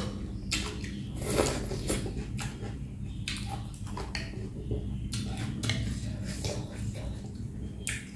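Close-miked eating sounds: wet chewing and lip smacking, a run of short clicks and squishes, over a steady low hum.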